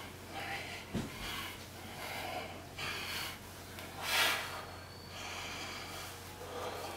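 Heavy, labored breathing of a man doing bodyweight squats, short breaths coming every second or so, out of breath from the exertion. There is a dull thump about a second in and a longer, louder breath about four seconds in.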